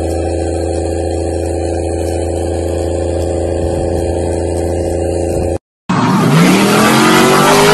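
Dodge Ram diesel pickup engine held at a steady high rev while rolling coal, a constant unchanging drone that cuts off abruptly a little past halfway. Then a lifted square-body Chevy pickup's engine revs up, rising in pitch, as its tyres spin on dirt.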